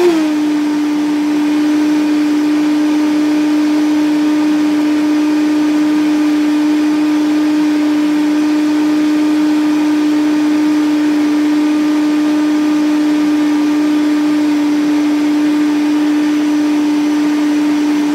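Vitamix blender running steadily at full speed, with a constant high motor hum, liquidizing soaked sea moss and water into a smooth gel.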